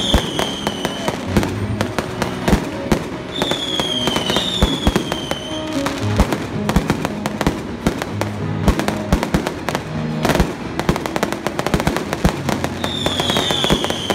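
Aerial fireworks display bursting and crackling in a dense, continuous run of sharp pops and bangs. High whistling tones that fall in pitch sound at the start, around four seconds in, and near the end.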